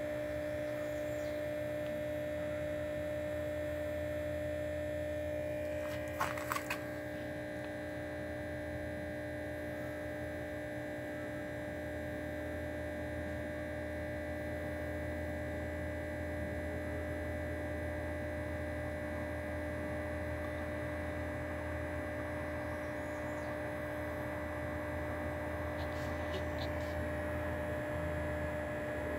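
Steady electrical hum, with a brief cluster of faint clicks about six seconds in.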